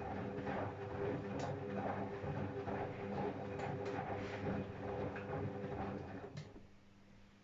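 Privileg 810 SE washing machine running: a steady motor hum with an uneven rumbling over it, which winds down and stops about six seconds in.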